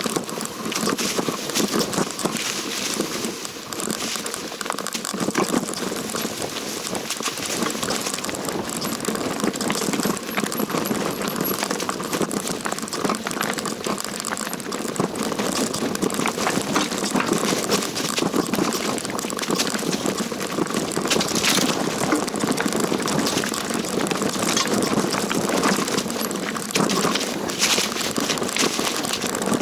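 Mountain bike riding down a rough dirt and rock trail: continuous tyre noise on the ground with a dense rattle of clicks and knocks from the bike.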